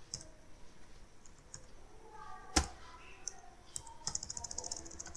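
Computer keyboard keys being pressed: scattered faint taps, one sharper key strike about two and a half seconds in, and a quick run of taps near the end.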